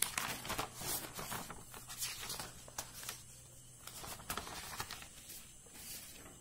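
Loose sheets of paper rustling and crinkling as pages of notes are lifted and laid back down, in irregular bursts with small clicks, busiest in the first second.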